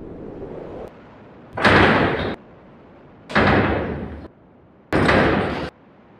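A low rumble, then three loud bangs about one and a half seconds apart, each ringing on briefly before cutting off, with a fourth starting at the very end.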